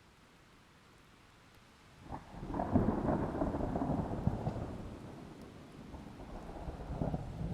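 Thunder: a sharp crack about two seconds in, followed by a loud rumble that slowly fades, then a second rumble building near the end.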